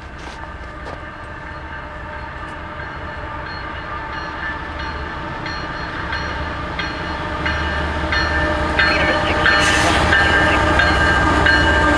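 Freight train led by two GE diesel locomotives (an ES44AC and an AC4400CW) approaching. Its engine and rail noise grows steadily louder, getting louder and fuller after about eight seconds.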